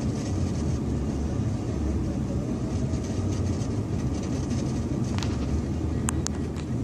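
Semi truck ploughing through deep floodwater: a steady low rumble with the rush of water spray. A few sharp ticks come near the end.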